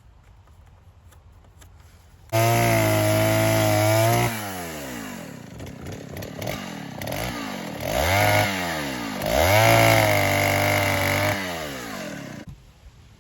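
Chainsaw cutting a small cedar post for a fence brace. It starts abruptly about two seconds in and holds at high revs, then its pitch falls and rises several times as it works through the wood, and it stops shortly before the end.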